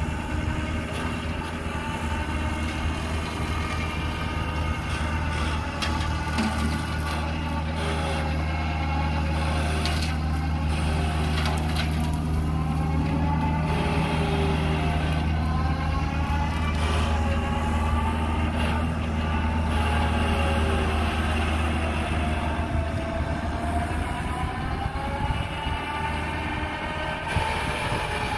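Kubota excavator's diesel engine running steadily under load, with the hydraulic brushcutter attachment whining and slowly rising and falling in pitch as it cuts brush. A few sharp cracks come through in the first half.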